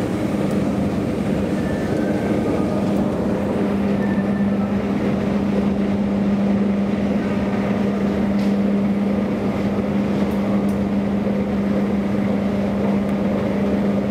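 A 2012 SMW traction elevator car riding through its shaft: a steady hum with one constant low tone, over an even rushing ride noise.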